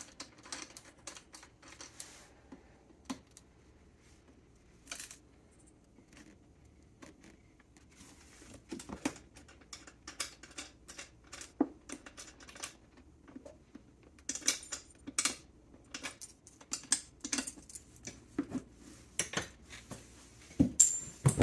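Small metal hardware being handled by hand: wing nuts being spun off the saddlebag mounting studs and washers clinking. The light clicks and clinks come sparsely at first and get much busier about two-thirds of the way through.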